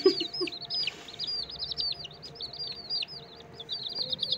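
Domestic chicks peeping steadily, a rapid run of short, high, downward-arching cheeps, several a second.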